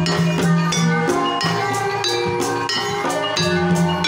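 Javanese gamelan music in Banyumasan style: bronze metallophones and gongs ring in steady interlocking tones over long low sustained notes, driven by strokes on kendang hand drums. The low tone changes pitch about halfway through.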